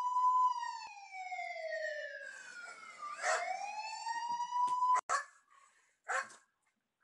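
Police siren wailing in slow rises and falls, cut off abruptly about five seconds in, followed by a short noisy burst.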